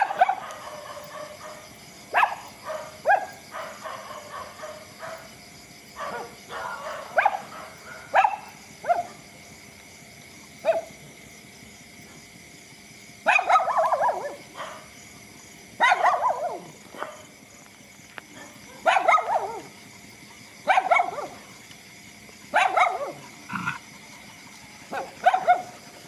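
Dogs barking repeatedly, single barks and short runs of barks a second or two apart, with brief quiet gaps between them.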